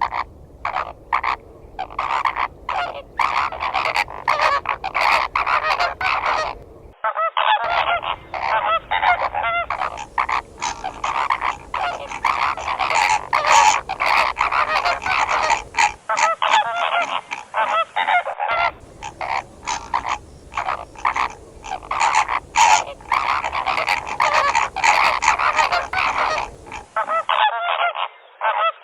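A flock of flamingos honking: a dense chorus of short, overlapping calls that runs throughout. It is made of several recordings joined with abrupt cuts.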